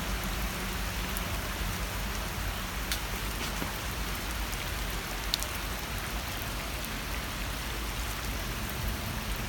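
Steady rain pattering on the surface of a pond, with a few sharper single drop ticks standing out.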